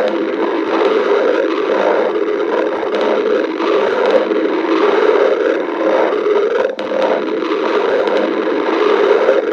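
Stomach growling: a continuous, uneven rumble from the belly, with a brief drop in loudness about seven seconds in.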